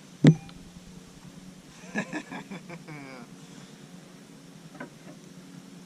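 A single sharp knock about a third of a second in, with a brief ringing, as parts are handled during a backhoe bucket swap; a few quieter knocks follow.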